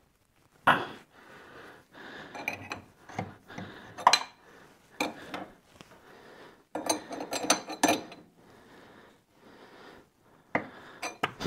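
Steel wrench clinking and scraping against a bolt and the tractor's steering fork while it is turned in. Irregular sharp metallic clicks with softer rubbing between them, and a quick run of clicks near the middle.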